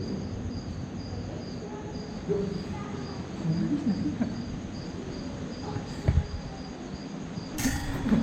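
Cricket chirping in an even rhythm, about two to three high chirps a second, over low murmuring voices; a brief loud rustling noise near the end.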